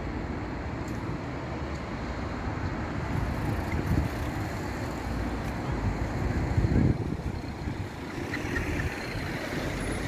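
Street traffic: the steady low rumble of cars on the road, swelling briefly about six to seven seconds in as a vehicle passes close.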